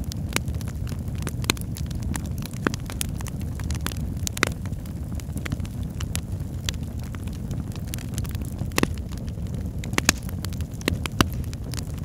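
Fireplace fire crackling: irregular sharp pops and snaps over a steady low rumble of flames.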